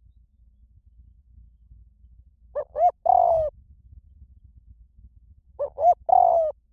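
Spotted dove cooing: two identical phrases about three seconds apart, each two short coos and then a longer coo that falls slightly at the end.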